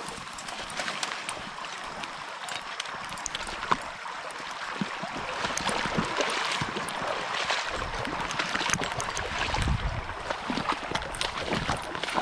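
Footsteps crunching through dry grass and brush, then over a gravel creek bank, with a steady rustle of stems brushing against clothing and gear and many small irregular clicks.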